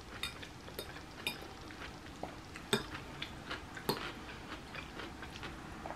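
Metal fork clinking and scraping against a bowl while pasta salad is scooped, a scattering of sharp clicks with the loudest nearly three and about four seconds in, along with quiet chewing.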